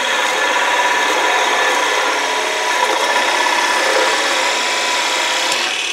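Forstner bit in a wood lathe's tailstock boring into a spinning wood blank: a steady scraping cutting noise over the running lathe, as the bit is fed in toward breaking through the blank.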